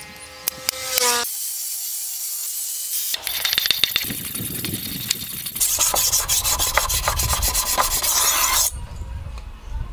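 Steel blade, forged from a motorcycle disc brake, being rubbed back and forth across a sharpening stone: a rasping scrape of many quick strokes that stops near the end.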